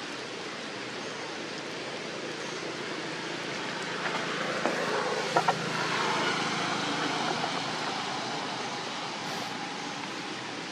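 Steady hiss of heavy rain, swelling for a few seconds about halfway through, with two quick clicks about five seconds in.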